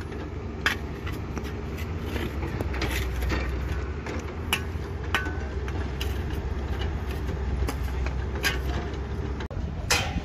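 Steady low rumble of heavy machinery running, with scattered short scrapes and clinks of steel shovels working sand. A few louder knocks come near the end.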